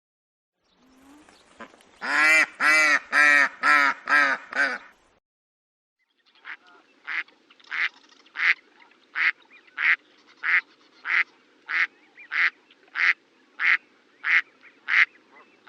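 Duck quacking: a burst of about six loud, nasal quacks in quick succession, then after a short pause a second recording of short, clipped quacks repeated evenly, about three every two seconds, over a faint steady background hum.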